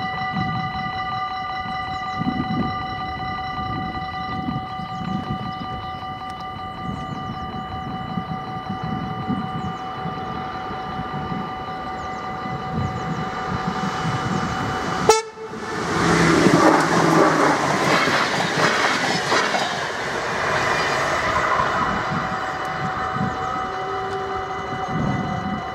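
Level-crossing warning bells ringing steadily with a fast repeating beat. About fifteen seconds in there is a sharp crack, then an electric InterCity train passes loudly for several seconds and fades, while the bells ring on.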